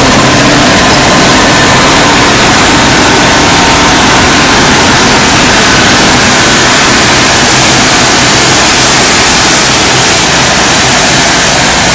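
Combine harvester running at close range while harvesting grain: its engine and the threshing and cutting machinery make one loud, steady noise.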